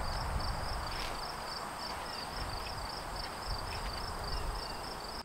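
Outdoor ambience: a steady rustling hiss with a low, uneven rumble of wind on the microphone, and an insect chirping in an even rhythm of about three chirps a second.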